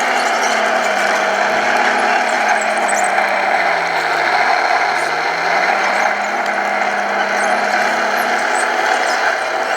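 Radio-controlled model construction machines whirring, their electric motors and gearboxes making a steady hiss-like whine. A lower motor hum drops in pitch about halfway through, then rises back as the motor speeds up again.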